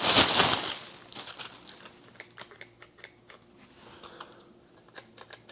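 Plastic packaging bag crinkling loudly for about the first second as a handle is pulled from it, then scattered light clicks and rustles of the plastic being handled.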